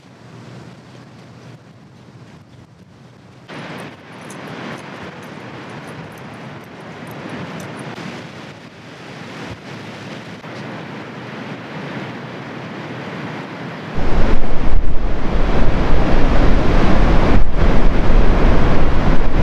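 Ocean surf washing and breaking on a sandy beach, a steady noisy rush that grows louder. About two-thirds of the way through, wind buffeting the microphone comes in as a loud low rumble over the surf.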